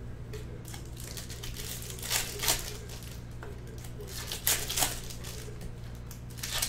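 Foil wrappers of 2020 Bowman baseball hobby card packs crinkling and tearing as they are torn open by hand, with a pair of sharp crackles about two seconds in and another pair just past four seconds, over a steady low hum.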